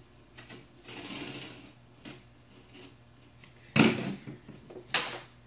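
Workbench handling noises while working on cardboard box parts: a short scrape about a second in, then two sharp knocks near the end, the first the loudest.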